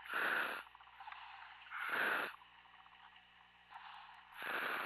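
A diver's breathing through a helmet demand valve, heard over the diving communications: three short hissing breaths about two seconds apart.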